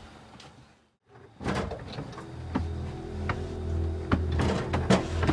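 Several sharp knocks and clatters. From about two seconds in they sit over a low, steady drone of background music.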